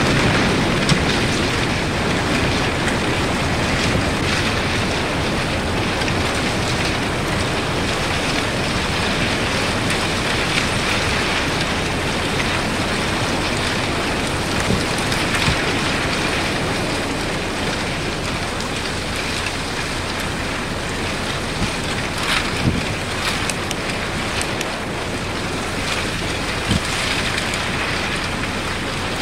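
Broken plates of thin lake ice jostled by waves against the shore: a steady rushing hiss, with occasional sharper clicks from shards knocking together, a few of them late on.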